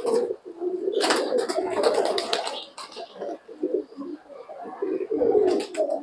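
A flock of domestic pigeons cooing continuously, with bursts of wing flapping about a second in and again near the end.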